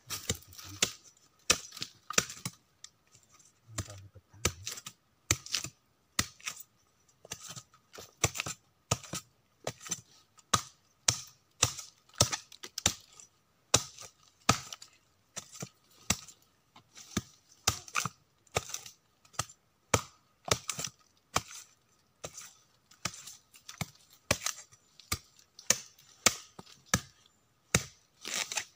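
Machete strokes chopping into a soft, rotting stump, a sharp crack about every half second, kept up steadily.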